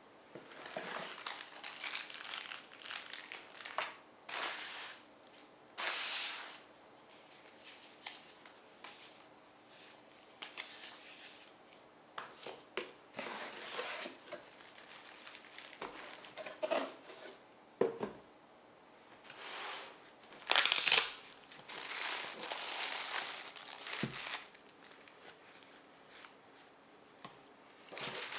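Packaging crinkling and rustling by hand in irregular bursts, with a few small clicks and knocks, as a new pair of binoculars is unpacked. The loudest crinkle comes about twenty seconds in.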